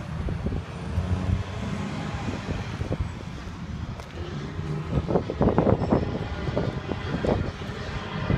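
Wind buffeting a phone's microphone outdoors, a steady low rumble. From about halfway through, footsteps crunch irregularly on gravel as the person filming walks.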